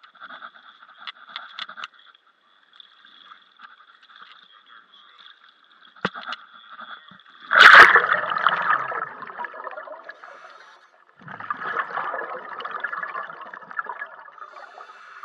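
Pool water splashing loudly about halfway through as the camera goes under the surface, then muffled underwater gurgling and bubbling.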